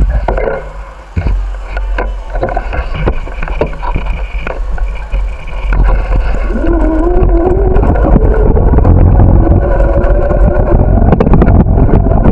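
Wind buffeting the microphone of a camera riding along on a bicycle, with many sharp rattling knocks as the bike rolls over the path. From about six seconds in, a whine joins and slowly rises in pitch.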